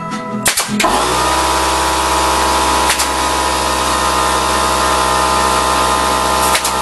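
Corded electric drill starting about a second in and then running steadily at one constant pitch.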